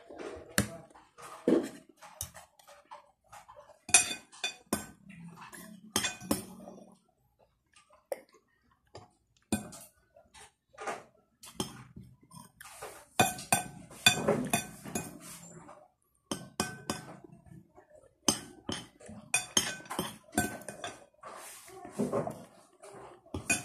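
Metal spoon and fork clinking and scraping against a plate during a meal, in irregular sharp clicks.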